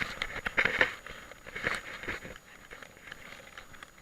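Wet soil being pushed back into a dug hole: irregular crunching, scraping and crackling of earth and grit, busiest in the first second or so. Rain patters steadily underneath.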